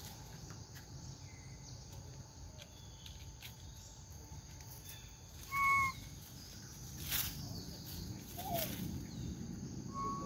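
Forest ambience with a steady high drone of insects, broken a little over halfway through by one short, loud, flat whistle-like call, with a few faint clicks and rustles after it.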